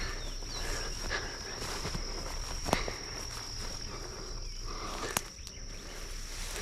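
A steady high-pitched insect trill, with footsteps through brush and a few sharp snaps, the loudest about a third of the way in and again near the end.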